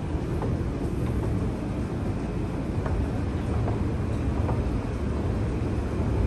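Mitsubishi escalator running: a steady low rumble from the moving steps and drive, with a few faint clicks.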